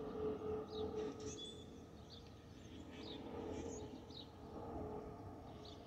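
Airbus A319 jet passing overhead and moving away: a low engine rumble with a steady whistle from the fuel over-pressure protector (FOPP) vents under the wings, fading a little midway and then returning. Small birds chirp over it.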